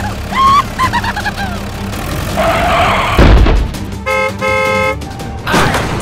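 Car horn honking twice, a short toot then a longer one, about four seconds in, preceded by a rising whine and a low thud.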